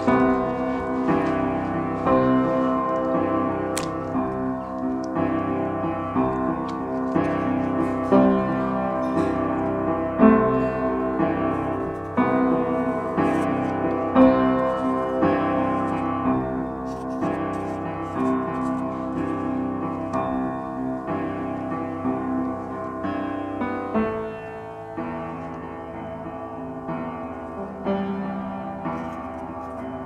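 Piano music, getting quieter in the last few seconds.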